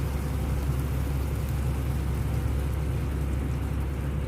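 Steady low hum with an even hiss from the stove and a pan of cream sauce heating.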